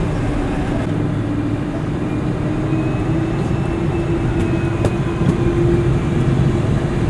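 Boeing 747-400's Pratt & Whitney PW4000 turbofans running at taxi power, heard inside the cabin: a steady hum with a faint high whine, the pitch edging up a little about three seconds in. A single faint click near the end.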